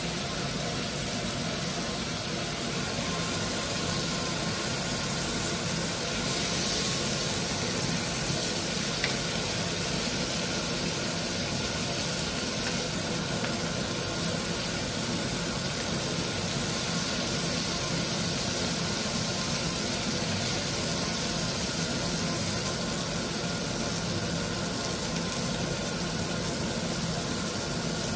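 Food sizzling in a hot pan over a steady mechanical hum, the hiss growing louder for a couple of seconds about six seconds in.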